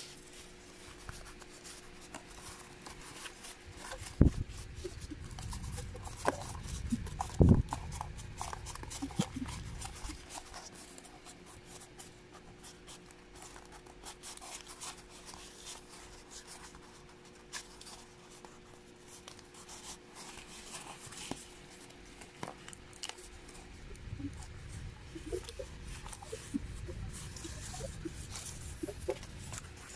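Hands rubbing, bending and scraping corrugated cardboard pieces along their scored lines, with small crackles and scrapes throughout and two sharper knocks, about four and seven and a half seconds in.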